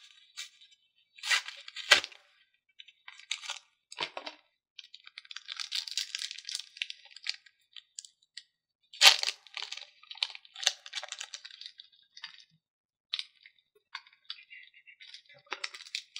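Foil trading-card booster pack being torn open and crinkled, in irregular bursts of tearing and crackling with sharp loud snaps about two seconds in and again near nine seconds.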